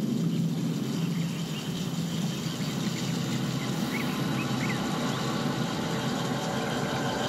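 Excerpt of an electroacoustic soundscape built from Mixtec landscape recordings: a low steady rumble and hum under a hiss, with a few faint high chirps about four seconds in.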